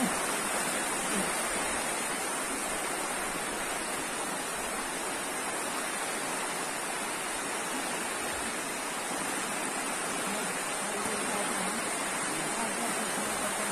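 Fast-flowing floodwater rushing along a flooded street, a steady, unbroken rush of water.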